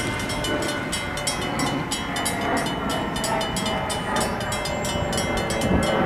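CSX intermodal freight train running past a road grade crossing: a steady rumble of the train with a fast, even series of high ticks, about five a second, over it.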